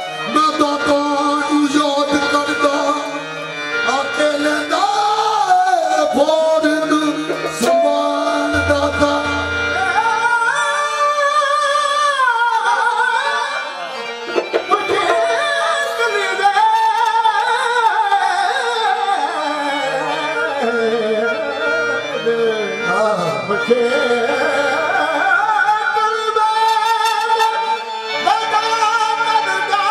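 Music: a voice singing a melody in long, wavering held notes over instrumental accompaniment.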